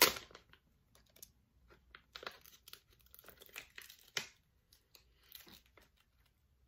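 Face-mask sachet being torn open and crinkled by hand. A loud rip comes at the start, then scattered short crinkles and tears, with one sharper rip about four seconds in.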